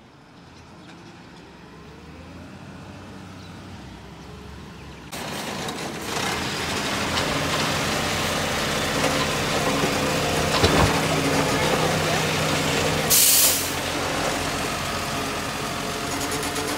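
Side-loading garbage truck drawing up, growing louder, then running loud with a steady hydraulic hum as its automated arm grabs and works the wheelie bin. A sharp clunk comes about 11 s in, and a short hiss of the air brakes about 13 s in.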